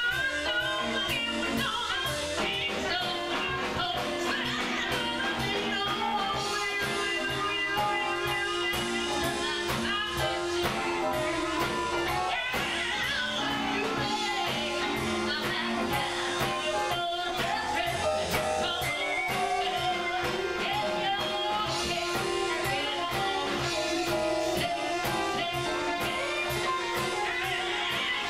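Live blues band playing: electric guitar, saxophone, violin, drums and keyboards, over a steady drum beat.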